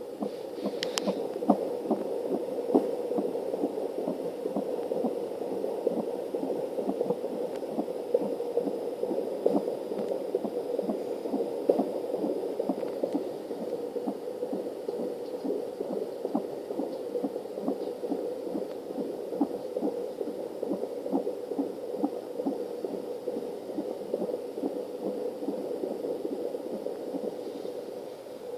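Fetal heartbeat heard through an Angel Sounds handheld fetal doppler at 30 weeks of pregnancy: a fast, steady, rhythmic whooshing pulse.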